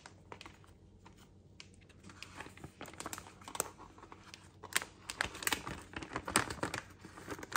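Plastic Greenies cat-treat pouch crinkling as it is handled and a hand reaches inside, an uneven run of crackles that gets busier from about two seconds in.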